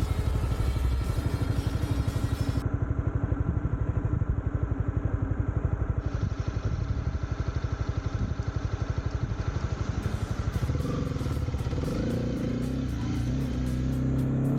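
Honda CB300R's single-cylinder engine running on the move, with a fast, even exhaust pulse. About ten seconds in the engine note changes and climbs in pitch as it accelerates.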